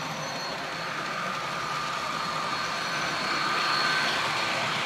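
A model passenger train rolling past on the track, its wheels making a steady running rumble over a faint high whine. It grows louder as the cars come by and is loudest about four seconds in.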